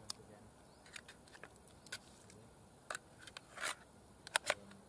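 Ring-pull tin of mackerel being opened by hand: scattered sharp metallic clicks, a short scrape about three-quarters of the way in as the lid is peeled back, and a quick cluster of clicks near the end.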